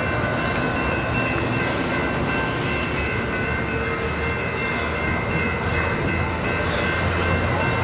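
Amtrak Superliner bilevel passenger cars rolling past, their wheels rumbling steadily on the rails. Steady high-pitched ringing tones sound over the rumble.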